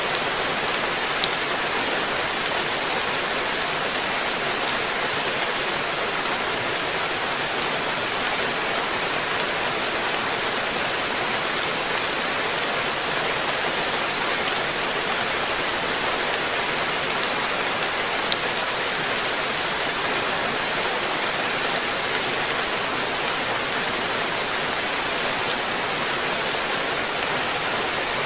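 Steady rain falling on a garden koi pond, an even hiss of drops on the water with the odd sharper single drop tick.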